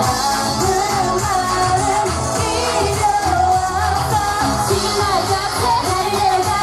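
Live K-pop music played loud over a stage sound system: a backing track with a steady beat and a sung or whistled melody line.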